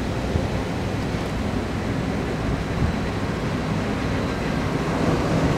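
Diesel locomotive of a freight train approaching from a distance: a low rumble under a steady rushing noise, growing slightly louder near the end.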